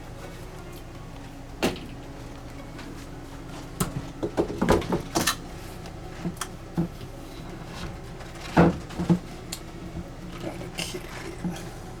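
A series of irregular knocks and clunks as the old countertop is handled and laid over the new countertop. A cluster of them comes in the middle, with single knocks before and after.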